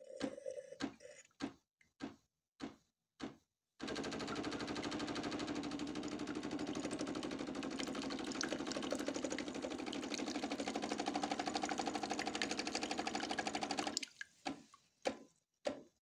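Bosch Tassimo Suny coffee machine's pump running with a steady, rapid pulsing buzz, pushing descaling solution through the brew head in one of the cleaning phases of the descaling programme. It starts about four seconds in and cuts off about ten seconds later, with a few short clicks before and after.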